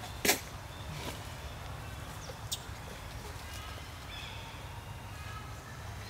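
Outdoor ambience with a steady low rumble: a sharp knock about a third of a second in, a lighter click a couple of seconds later, and faint high chirping in the background.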